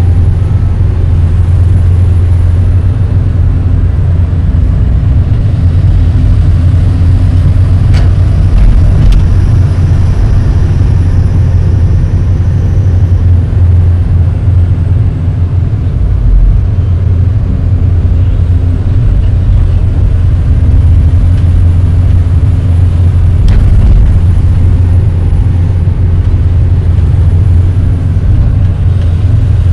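SANY hydraulic excavator's diesel engine running steadily under load, a deep, loud drone heard from inside the cab while the bucket pushes loose soil. Two brief sharp clicks, about eight seconds in and again after about twenty-three seconds.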